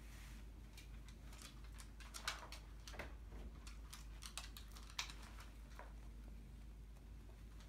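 Dog's claws clicking irregularly on a hardwood floor as it walks about, with a few sharper clicks standing out.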